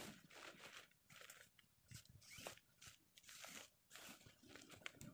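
Faint, irregular rustling and crinkling of a camouflage tarp being pulled and spread over a shelter frame.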